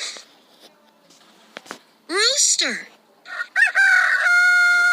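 Rooster crowing cock-a-doodle-doo, starting about three seconds in: a couple of short bending notes, then one long held note.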